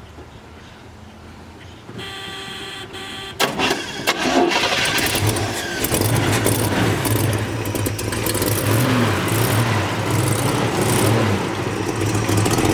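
1968 Chevelle SS 396 big-block V8 being started: the starter cranks briefly about two seconds in, the engine catches at about three and a half seconds, then settles into a loud steady idle through its stock manifolds and new exhaust. The bored .030-over engine has a mild "thumper" cam, which gives a lumpy idle.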